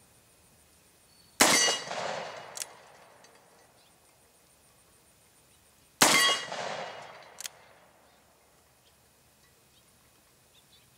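Two shots from a Freedom Arms .475 Linebaugh revolver, about four and a half seconds apart, each a loud blast that rolls off over about a second. A short sharp crack follows each shot a little over a second later.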